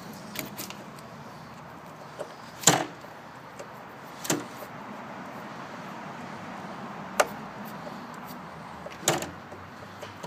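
Four sharp knocks and clicks over a steady low hiss, from the door and its hole-boring hardware being handled.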